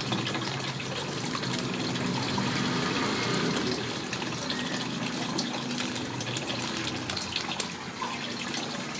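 A steady rushing hiss, much like running water.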